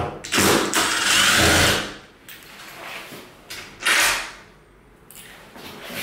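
Milwaukee cordless impact driver running for about a second and a half, backing out a door handle's fixing screw. A second, shorter noise follows about four seconds in.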